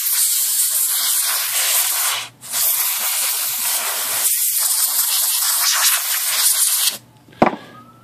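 Pressurised spray hissing onto a water-damaged typewriter circuit board to clean off corrosion, in two long bursts with a short break about two seconds in, stopping sharply near the end. A single sharp knock follows.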